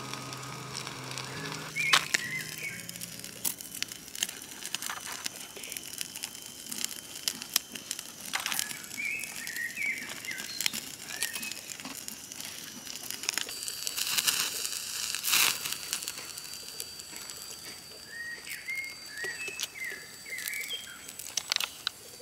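Handling noises from food and packaging: crinkling plastic with scattered clicks and knocks. Short bird chirps come in several brief bursts, and a thin high steady tone runs for a few seconds in the middle.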